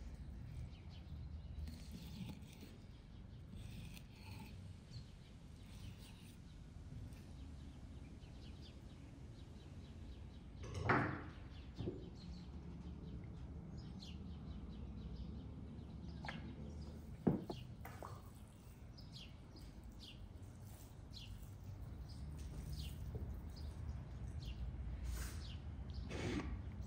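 Faint bird chirps over a low steady background hum, broken by two sharp knocks, about eleven and seventeen seconds in, from a kitchen knife working against a wooden cutting board while a raw turkey is cut.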